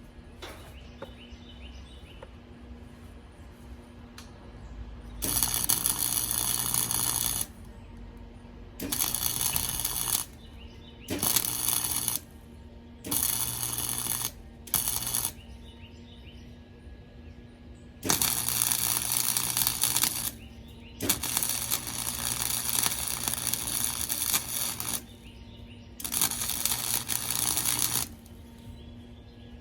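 Electric arc welder running in a series of short beads, a loud crackling sizzle that starts and stops about eight times, each run lasting one to four seconds with pauses between.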